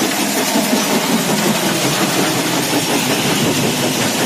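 Stone-crusher plant running: a belt-driven jaw crusher and its conveyor belts crushing stone into gravel chips, a loud, steady mechanical din.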